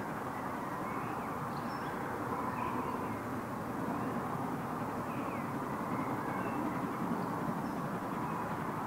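Distant GWR 2-8-0T steam tank locomotive working as it approaches, a steady sound without clear beats, with birds chirping faintly over it.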